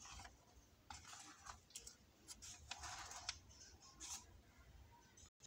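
Faint rustling of a book's paper page being turned by hand, with a few light clicks and one longer rustle about three seconds in.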